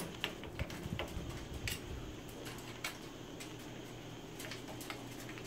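Scattered small clicks and taps of a screwdriver and screws against a PC case's metal panel as the radiator's mounting screws are started but not yet tightened. Most of the clicks come in the first three seconds.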